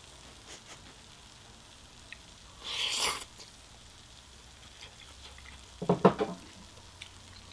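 Close-up eating sounds: a slurp about three seconds in as a spoonful of cheesy kimchi fried rice trailing melted-cheese strings is taken into the mouth, then a louder short voiced sound from a full mouth a few seconds later.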